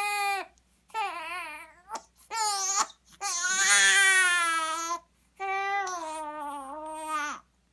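A young baby crying in a run of separate wailing cries with short breaths between them; the longest and loudest cry comes about three seconds in.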